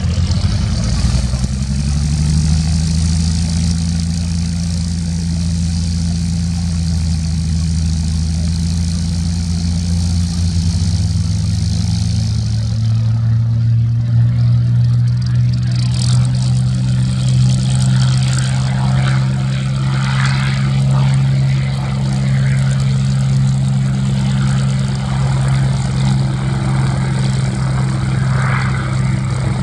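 Vintage propeller aircraft piston engines running steadily. The engine note steps up about two seconds in, then settles to a lower, steady note about thirteen seconds in.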